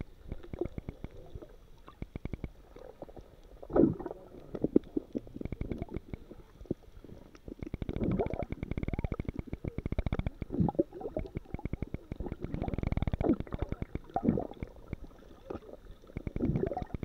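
Muffled underwater sound picked up by a submerged camera: low rumbling and gurgling water with a dense fine crackle, swelling irregularly as the swimmers move, loudest about four seconds in and through the middle.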